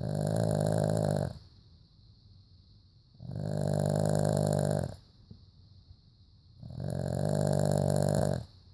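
Dog snoring: three loud snores of about a second and a half each, coming about every three and a half seconds, with quiet breathing between them.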